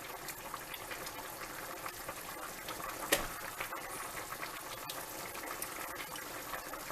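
Pot of chicken broth simmering with a steady bubbling, and one sharp click about three seconds in.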